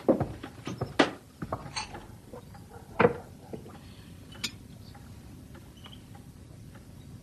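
Knocks and clinks of china and cutlery at a tea table: a few sharper knocks in the first three seconds, then faint scattered clicks of a spoon on china.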